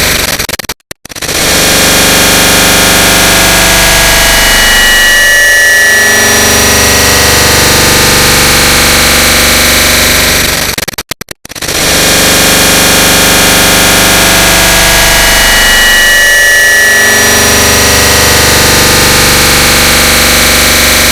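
A click sound digitally stacked and multiplied over and over into a loud, dense wall of noise. The same stretch loops about every ten and a half seconds, with a brief dropout about a second in and again about halfway.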